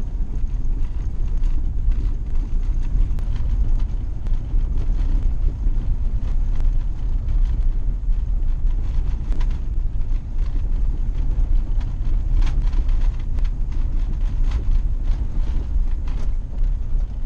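Van driving slowly on a gravel lane: a steady low road rumble inside the cab, with tyres crunching over loose stones and many small scattered clicks.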